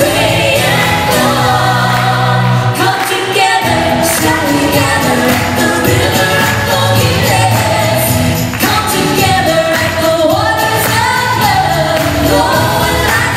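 A women's vocal group singing a Christian pop song in harmony over a live band.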